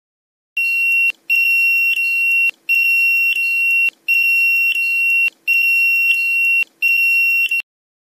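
Electronic buzzer of a homemade security alarm sounding a steady high beep, repeated about six times with short gaps, starting about half a second in. The alarm is tripped by a wooden board placed between the sensor and the remote control.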